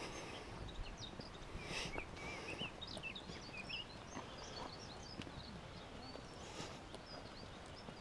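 Faint birdsong: quick high chirps and twitters from small birds, busiest in the first few seconds and thinning out, over a low steady hiss.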